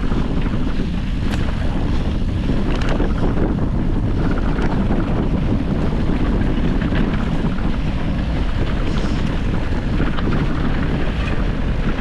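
Wind buffeting the camera microphone as a mountain bike rolls along a dirt singletrack trail, a loud, steady rushing rumble with a few light knocks from the ride.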